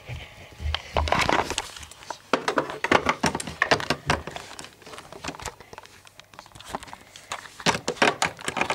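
Close handling noise: irregular clicks, taps and rustling from hands moving the camera and plastic toys about.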